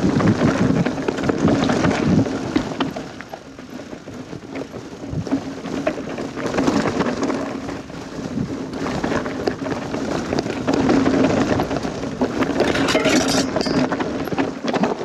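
Niner mountain bike on 29-inch wheels rattling down a rough, rocky descent: tyres clattering over stones and the bike rattling, with a louder, sharper clatter near the end.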